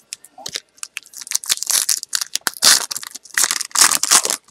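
Hobby pack of 2012 Panini Prizm Baseball cards being torn open by hand, its wrapper crinkling and ripping in a series of short, separate crackles.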